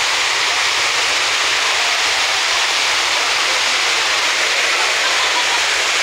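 Waterfall and water rushing over rocks: a steady, unbroken hiss.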